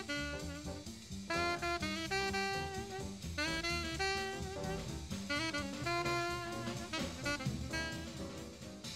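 Jazz music with a saxophone melody over drums, getting quieter toward the end.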